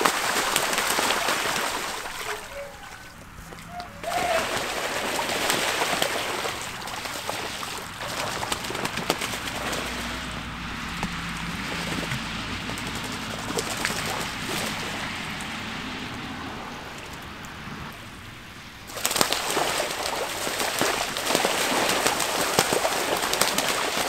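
Ducks bathing and splashing hard in a shallow pond, diving and beating the water with their wings, a dense choppy sloshing full of sharp splashes. The splashing eases off briefly a couple of seconds in and again toward the end, then picks up strongly for the last few seconds.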